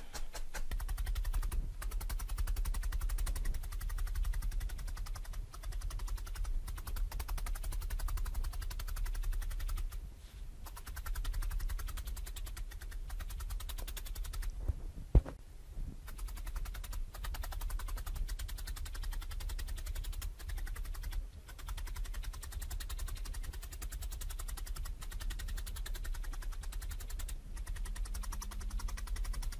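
Felting needle stabbing rapidly through wool into a dense foam mat, sped up into a fast, continuous stream of soft thuds and ticks. There is one sharp click about fifteen seconds in.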